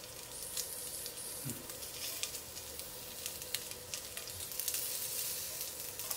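Sausage and rice cake skewers sizzling in hot oil in a frying pan, a steady hiss with frequent small crackles, as they fry until golden.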